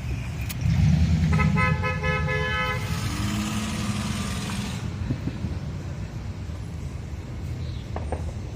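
A car horn sounds one steady blast lasting about a second and a half, over a vehicle engine rumbling nearby. A lower, shorter tone follows, then steady traffic noise.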